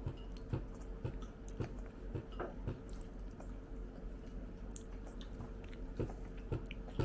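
Close-miked chewing of soft, moist food: wet mouth clicks and squishes at an even pace of about two chews a second.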